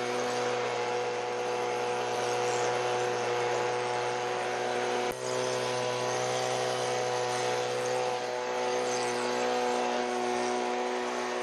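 Small gasoline engine running steadily at a constant speed, with a brief dropout about five seconds in.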